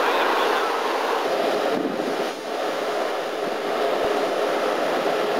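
Steady rushing noise of wind and sea heard from a ship's deck, dipping briefly about two seconds in.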